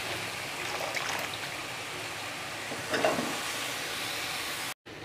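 Cauliflower florets sizzling in oily fried masala in a pan, with a steady hiss, while a metal slotted spatula stirs them, making the sound briefly louder about a second in and again about three seconds in. The sound cuts off suddenly near the end.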